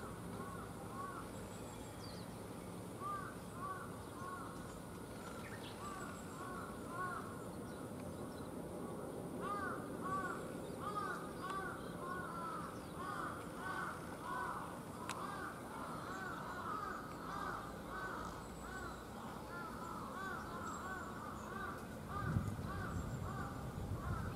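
A flock of birds calling: many short rising-and-falling calls overlap in a busy chorus that grows denser from about ten seconds in, over a faint low steady hum. A low rumble comes up near the end.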